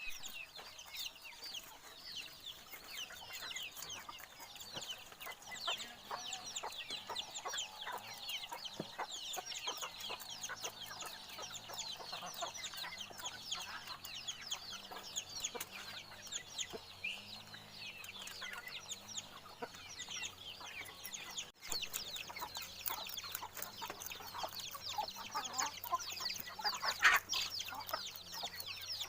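Dense high chirping and peeping of many birds, like a farmyard flock, with scattered short clicks and a brief break about two-thirds of the way through.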